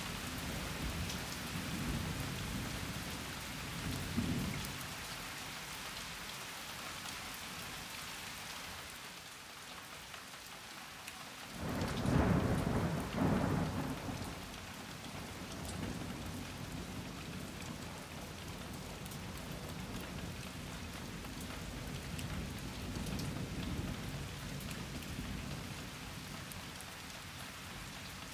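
Thunderstorm: steady rain with the tick of drops, and thunder. A low rumble fades away over the first few seconds, then about twelve seconds in a sudden loud peal with two cracks rolls for a few seconds and dies down into distant rumbling.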